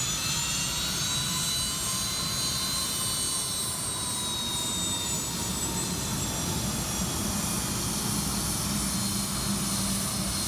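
Gulfstream IV-SP business jet taxiing, its twin Rolls-Royce Tay turbofans running at low thrust: a high engine whine that slowly drops in pitch in the first half, over a steady rumble.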